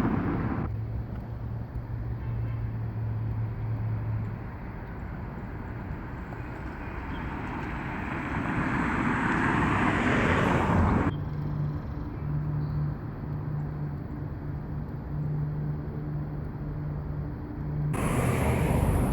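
Road traffic: a steady rush of passing cars with a low engine hum, swelling to a peak about ten seconds in.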